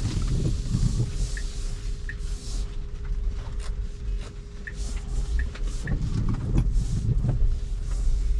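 Cabin noise inside a Tesla Model Y rolling slowly in the rain: steady low tyre and road rumble under a thin constant hum, with a few faint short ticks.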